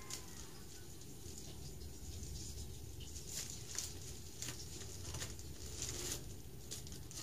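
Plastic courier pouch crinkling and rustling as it is opened by hand: a string of short, sharp crackles, most of them in the second half, over a steady low hum.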